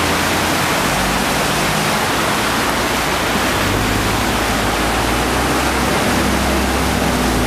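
Steady rush of floodwater running across a road, with the low hum of a vehicle engine growing stronger about halfway through.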